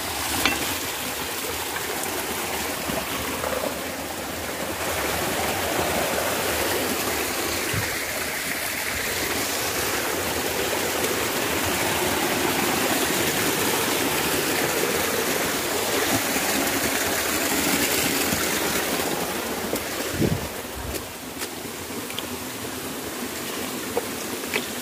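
Shallow rocky stream rushing and splashing steadily, with a couple of brief knocks.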